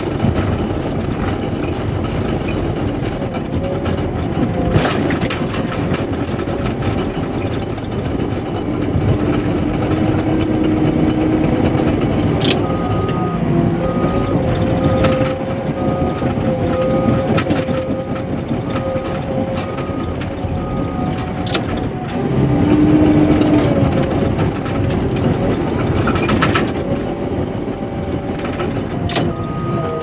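Cat D5K LGP bulldozer's diesel engine running steadily under load, heard from inside the cab, with scattered knocks and clanks from the tracks and blade. From about the middle of the stretch a backup alarm beeps about once a second for several seconds, and it starts again near the end.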